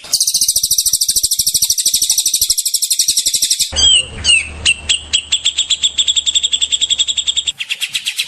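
Songbirds singing very fast, rattling trills of high, evenly repeated notes, many to the second, as used in masteran tutor recordings. The trill changes abruptly about a third of the way in, where a different bird's trill with a faint low hum underneath takes over, and changes again near the end.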